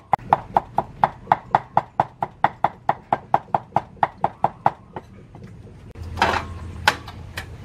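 Cleaver mincing garlic on a wooden chopping board: steady knocks about four a second, stopping about five seconds in. Near the end, a louder clatter and two sharp clicks come from the gas stove and frying pan.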